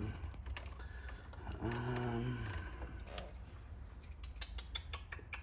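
Keys jangling, with a run of small metallic clicks in the second half.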